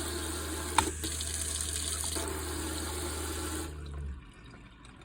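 Water running from a new Glacier Bay single-handle pull-down kitchen faucet into the sink, shut off a little under four seconds in. A low steady hum underneath stops about half a second later.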